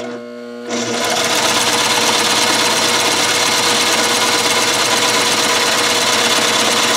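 Consew sewing machine stitching a straight seam through a seat-cover panel. The motor hums faintly for under a second, then the machine starts sewing and runs at a steady, even speed.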